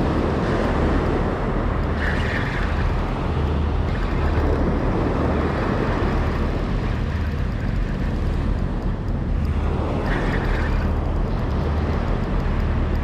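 Steady rumble of wind and breaking surf on an ocean beach, with wind buffeting the microphone.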